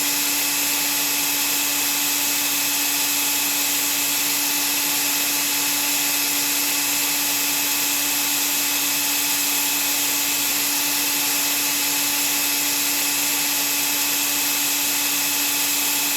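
Vacuum cleaner motor running steadily: an even, hissy rush strongest in the high range, with a steady hum under it and no change in level.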